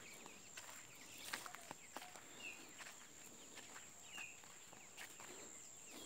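Faint footsteps crunching over dry leaves and twigs on bare ground, with a few short bird chirps, about two and a half and four seconds in, and a steady thin high-pitched tone underneath.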